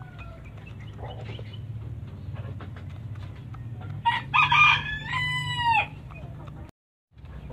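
A rooster crows once, loudly, starting about four seconds in, the call ending on a falling note. Faint clicks of a rooster pecking grain from a concrete feed bowl run beneath, and the sound drops out for a moment near the end.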